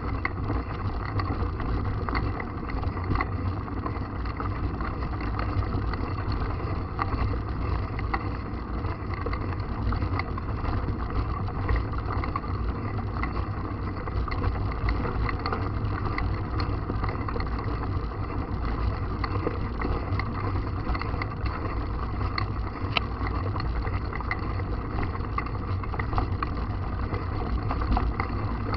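Steady low wind rumble on the microphone while a mountain bike is ridden, with small clicks and rattles from the bike throughout.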